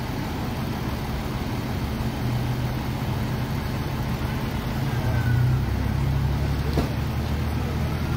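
Motor vehicle engine running, a steady low hum that grows louder about two seconds in and again around five seconds. A short knock is heard near the end.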